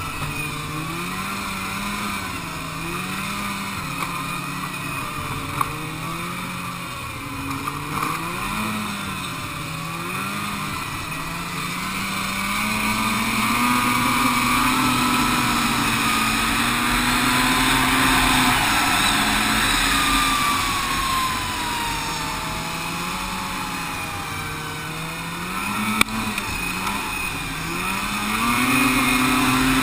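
Snowmobile engine running under constantly changing throttle. Its pitch rises and falls every second or two, then holds higher and louder for several seconds in the middle as it pulls harder, over a steady rush of noise. There is a sharp knock near the end.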